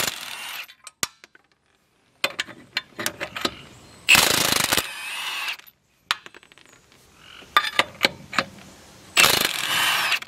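Milwaukee impact wrench hammering lug nuts loose on a steel wheel in three short bursts, about four to five seconds apart, with sharp clicks and clinks in between.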